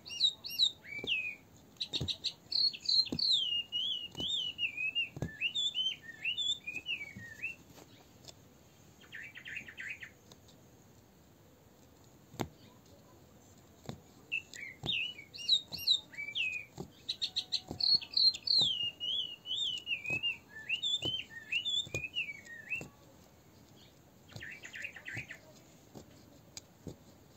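A songbird singing: a long phrase of rapid warbling, chirping notes, then a short buzzy trill a couple of seconds later, and the same sequence again about halfway through. Faint scattered ticks sound between the phrases.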